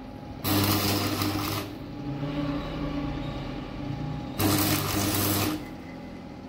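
Stick arc welding on a cracked motorcycle frame: two bursts of arc crackle over a steady electrical buzz, each about a second long, one starting about half a second in and one about four and a half seconds in, with a quieter hum between them.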